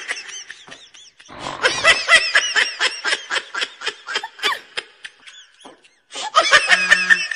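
High-pitched laughter in quick repeated bursts, broken twice by abrupt dead-silent gaps, about a second in and near six seconds.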